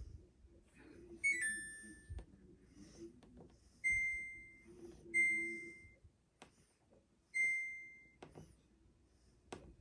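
Samsung front-load washer's control panel beeping as its buttons are pressed: a short descending chime about a second in, then three single beeps, each fading over about half a second. A few faint clicks fall between them.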